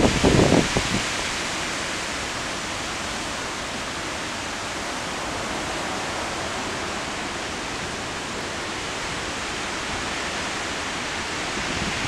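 Heavy storm rain falling in a steady hiss. A wind gust rumbles on the microphone and fades out in the first second.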